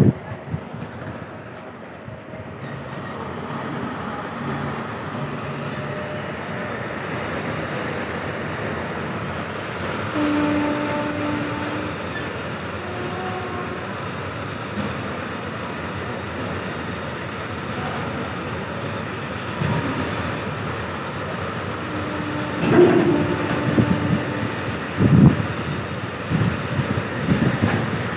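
Steady rumbling train noise, with a few short low tones around the middle and a cluster of louder knocks about three-quarters of the way through.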